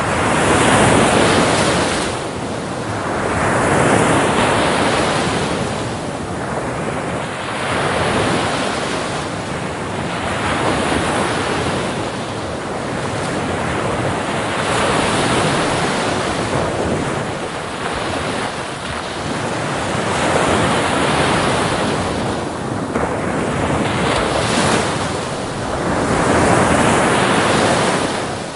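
Waves washing in one after another, the rush of surf swelling and falling back every few seconds.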